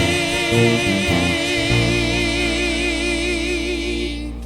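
Gospel singers holding a long final note with vibrato over instrumental accompaniment, ending the song; the music cuts off near the end.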